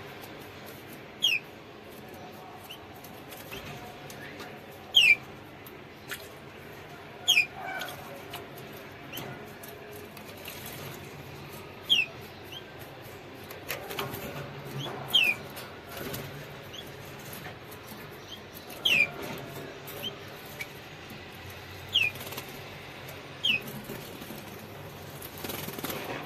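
Canaries giving short, sharp, downward-sliding chirps, about ten spread irregularly through the stretch, over soft splashing and wing flutters from a canary bathing in a shallow water dish.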